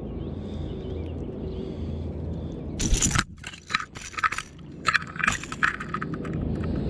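A largemouth bass thrashing free while held at the kayak, its lure's hooks and body rattling and scraping against the plastic hull and the angler's gear. The bout of sharp, irregular clattering starts about three seconds in.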